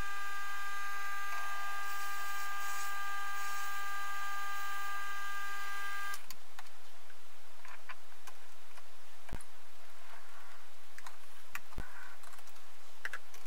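Optimum D180x300 benchtop metal lathe running with a steady whine from its drive, which cuts off suddenly about six seconds in. After that there are scattered sharp clicks and knocks.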